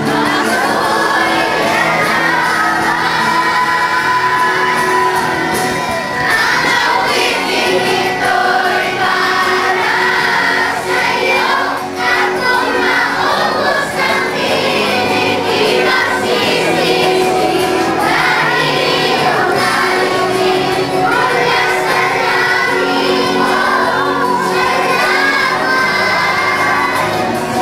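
A song sung over instrumental accompaniment, with voices that include children's.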